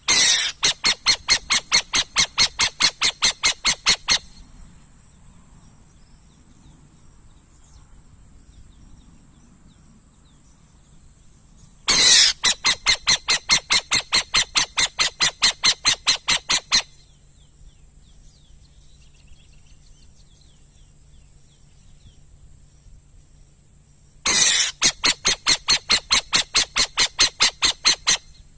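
Owl calling in three bouts of rapid, evenly spaced pulses, about five a second. Each bout lasts four to five seconds, and the bouts come about twelve seconds apart.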